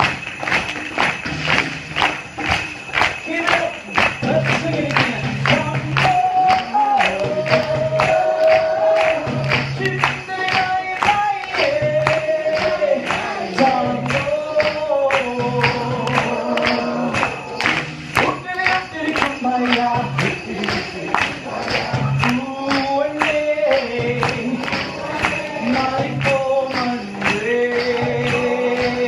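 A live tango played without words: a steady beat of sharp percussion strokes under a wandering melody line.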